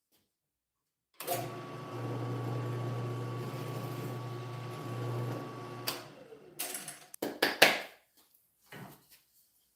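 Handheld electric sander running steadily for about five seconds, sanding the rough edges and corners of plywood circles, then switching off. Several sharp wooden knocks follow near the end.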